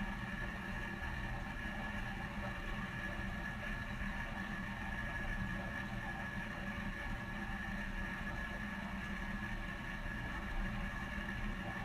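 Dishwasher running: a steady machine hum with a constant high whine, unchanging throughout.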